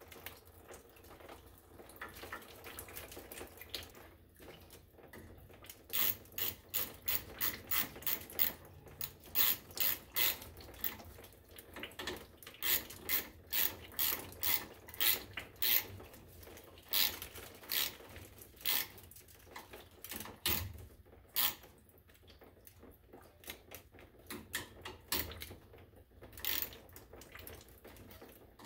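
Hand-tool clicking in quick bursts of several metal clicks as the bolts holding the brass top cover onto a Honeywell zone valve body are turned in. The clicking starts about six seconds in, is busiest up to about twenty-one seconds, and comes back briefly near the end.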